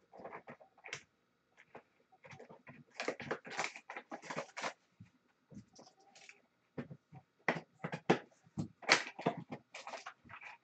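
Hands handling and opening hockey trading-card packs and a small cardboard card box: irregular bursts of rustling, crinkling and scraping, with a faint steady tone underneath.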